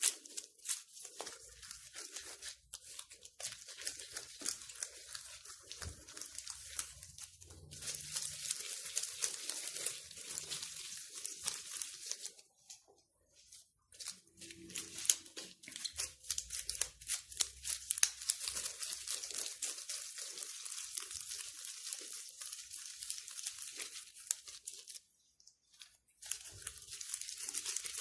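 Hands cutting and rolling yeast dough into balls on a lightly floured surface: a continuous soft crackling, rustling rub with many small clicks, stopping briefly twice.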